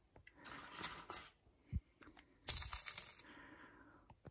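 Quail egg scissors cutting the tops off quail eggs: the blade crunches through the thin shell with a crackle of small clicks. A softer rustle comes near the start, and the loudest crackling cut about two and a half seconds in.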